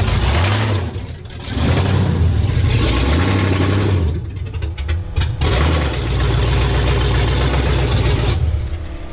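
LS-swapped V8 engine of an 80 series Land Cruiser revving up and dropping back several times, with two short lulls in between.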